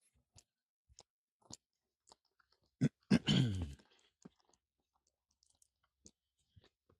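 Footsteps crunching as someone walks, about two steps a second. About three seconds in there is one louder, short sound that falls in pitch.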